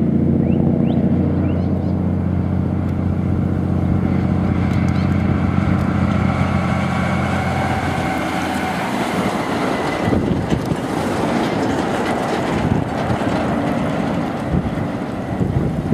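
Diesel engine of a road train's prime mover running with a steady, deep drone as the truck passes close by. From about halfway through, the engine fades and a broad rushing noise of many tyres and trailers rolling past takes over.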